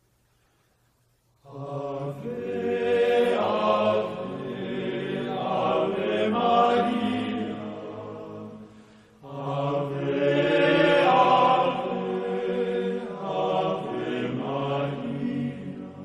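A group of voices chanting together in long, sustained sung phrases. It begins about a second and a half in, breaks off briefly around nine seconds, then picks up again.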